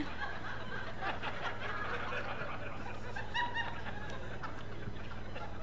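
Comedy club audience laughing, the laughter already dying down into scattered chuckles, with a few individual laughs standing out about halfway through.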